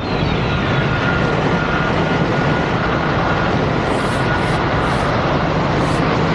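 Jet turbines of a turbine-powered hoverboard running: a steady, loud rushing noise with a high whine in it.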